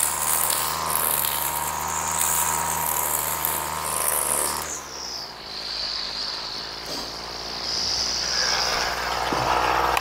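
Flymo Maxi Trim two-stroke strimmer engine running at high revs while cutting grass, strong and even after a carburettor clean. About halfway through the revs drop back, and they pick up again near the end.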